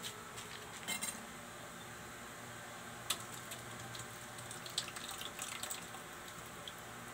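Milk poured from a carton into a stainless steel bowl, splashing into it, with a pair of knocks of the bowl about a second in, a sharp clink about three seconds in, and a scatter of small clinks and splashes a little later.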